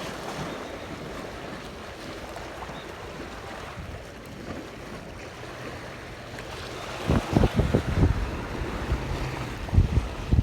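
Sea water washing in a steady hiss; from about seven seconds in, gusts of wind buffet the microphone in irregular low rumbles.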